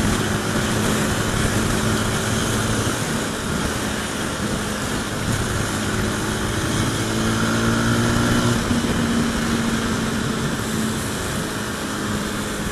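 Motorcycle engine running at a steady cruising pace on an expressway, its note holding nearly constant pitch. Loud wind rush and road noise sound over it.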